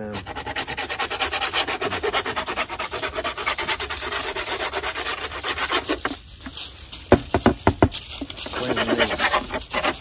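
Rapid scraping strokes on a wooden beehive frame as wax and debris are scraped off it. The scraping stops about six seconds in, followed by a few sharper, separate strokes.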